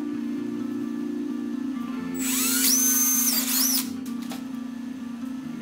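DeWalt cordless drill spinning up with a rising whine and boring through a grey plastic pipe, once, for under two seconds, starting about two seconds in. Steady background music plays underneath.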